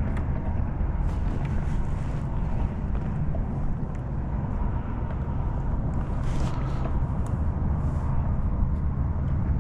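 Steady low rumble of wind buffeting the microphone on open water, with a few faint light clicks.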